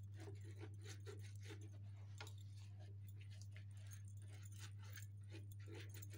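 Silicone pastry brush dabbing and spreading sauce over sheets of yufka pastry: faint, irregular soft strokes and light ticks, over a steady low hum.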